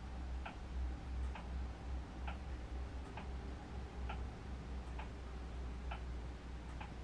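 A clock ticking steadily, one tick a little under every second, over a low steady hum.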